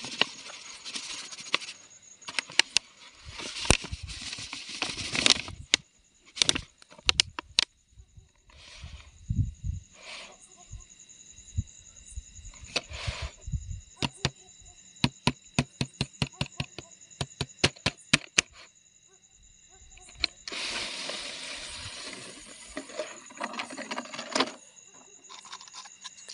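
Crackling and rustling of dry grass and leaves, with knocks and clicks on a plastic jar as a cobra is let out of it into the undergrowth; a quick run of clicks comes just past the middle and a longer rustle near the end. High, steady insect trilling runs underneath.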